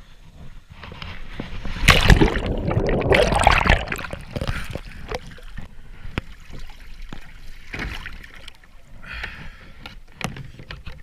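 Sit-on-top fishing kayak capsizing: a big splash about two seconds in as it tips over and the paddler falls into the water. Then water sloshing and smaller splashes around the hull as he floats beside it.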